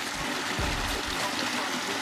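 Background music over a steady rush of flowing water from a stream inflow.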